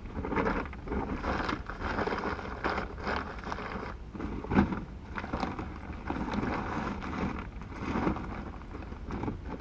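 Rustling and shuffling as someone handles things in the back of a car through the open rear hatch, with a sharper knock about halfway through.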